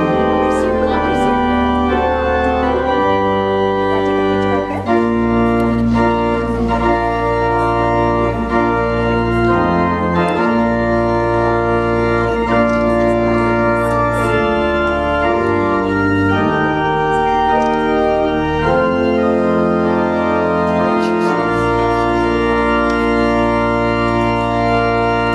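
Organ playing a wedding processional: slow, sustained chords over deep bass notes, changing every second or two, and stopping at the end.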